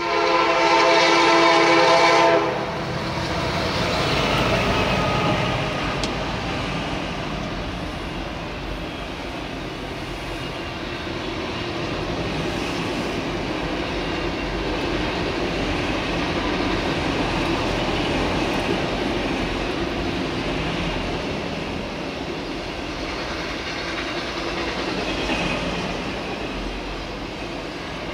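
Freight train horn sounding a loud chord that stops about two and a half seconds in. It is followed by the steady rumble and wheel clatter of a long string of autorack cars passing over the crossing.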